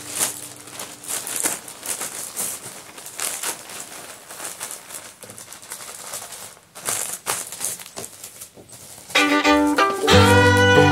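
Plastic packaging crinkling and rustling in quick irregular strokes as it is handled, then background music with a fiddle coming in loudly about nine seconds in.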